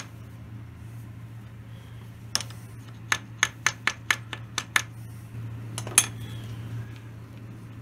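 Light hammer taps on a cast-iron lathe saddle, nudging it square on the milling table against a dial indicator. One tap comes first, then a quick run of about eight taps, then a single harder tap about six seconds in, over a steady low hum.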